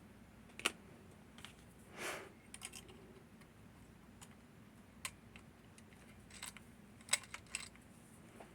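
Northern Telecom NE-22 six-lever lock being worked: scattered sharp metallic clicks of the mechanism, with a short scrape about two seconds in and a quick cluster of clicks near the end.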